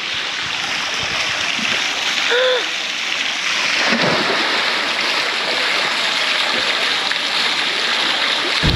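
A steady rush of running or spraying water, an even hiss that holds at the same level throughout.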